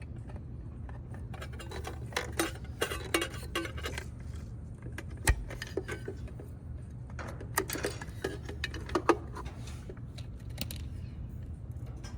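Scattered small clicks and light clinks of hands working wire connectors and small parts at a servo's circuit board, in two clusters with one sharp click about five seconds in, over a steady low hum.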